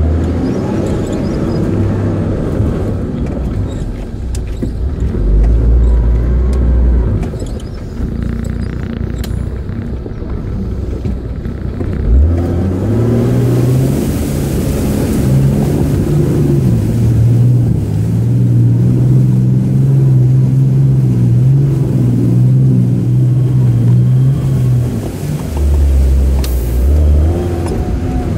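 Nissan GQ Patrol 4WD's engine heard from inside the cab, driven hard off-road. About twelve seconds in the revs climb and stay high under load for roughly twelve seconds, while scrub brushes along the body.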